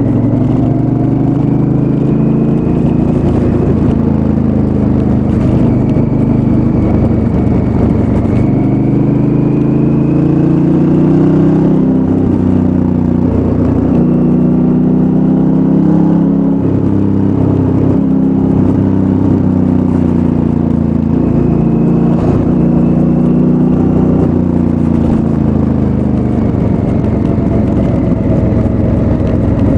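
Honda Africa Twin's parallel-twin engine on its stock exhaust, running under way with the revs rising and falling several times as the throttle is opened and closed, dropping off near the end.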